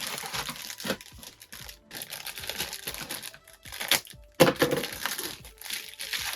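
Plastic parts bags from a radio-control car kit crinkling and crackling as they are handled, with a denser stretch of rustling about four and a half seconds in.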